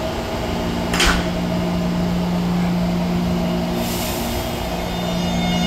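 Taipei Metro C321 electric train starting to pull out of an underground station, over a steady electrical hum. There is a brief hiss about a second in, a high hiss from about four seconds as the train begins to move, and the traction motors' whine starts rising near the end.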